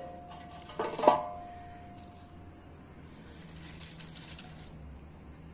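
A steel fire brazier is struck about a second in, giving a metallic clank that rings on for about a second. Light rustling follows as pine cones and pine needles are shifted inside it.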